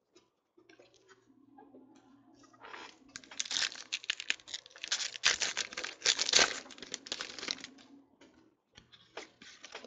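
A foil 2014 Panini Prizm trading-card pack being torn open by hand, its wrapper crackling and crinkling for about five seconds starting around three seconds in. Soft clicks and rustles of cards being handled come before and after.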